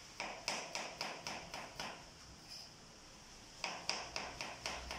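Kitchen knife chopping vegetables on a plastic cutting board: two runs of quick chops, about four a second, with a pause of a second and a half between them.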